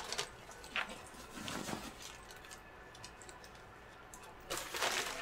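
Brown paper bag rustling and crinkling as it is handled and reached into. A few short rustles early on, then a louder crinkling burst near the end.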